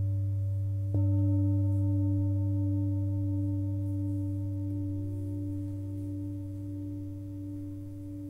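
Himalayan singing bowls struck with a felt-covered mallet: the ringing of an earlier strike is renewed by a fresh strike about a second in, then long steady tones with a deep hum underneath and a slowly wavering overtone, gradually fading.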